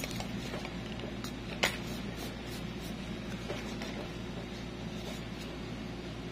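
Steady low mechanical hum with a few faint clicks and one sharp click about one and a half seconds in.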